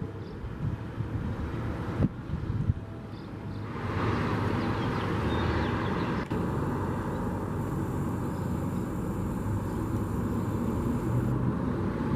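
Outdoor rumble of road traffic, growing louder about four seconds in; no siren is sounding.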